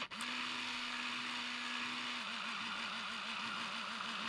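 Compact film camera's small electric film-transport motor whirring. It cuts out for an instant at the start and spins straight back up, and about two seconds in its pitch starts wobbling quickly up and down.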